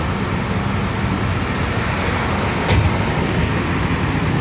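Steady low rumble of idling vehicle engines, with one short knock nearly three seconds in.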